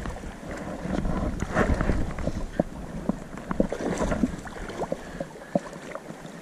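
Wind buffeting the microphone over the rush of river water, with scattered small clicks and taps. The low wind rumble drops away about five seconds in.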